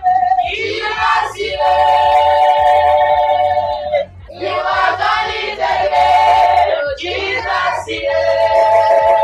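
Gospel song with voices holding long sung notes: three drawn-out phrases, each a couple of seconds long, with short breaks between them.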